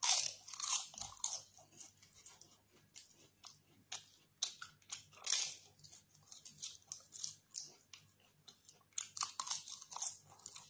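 Crunching and chewing of crisp fried papadam bitten off by mouth, the loudest crunch at the first bite, with more crunchy bites about four and five seconds in and again near the end, and softer chewing between.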